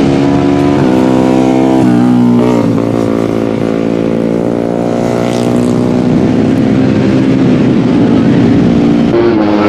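150cc four-stroke underbone race motorcycles running at high revs, their engine pitch stepping up and down and sliding in a slow rise and fall.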